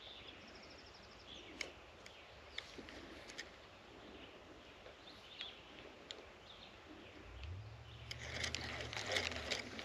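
Quiet lakeside outdoor ambience with faint bird chirps and a few small clicks. About seven seconds in, a low steady hum comes up and holds for a couple of seconds, while clicks and rustling grow near the end.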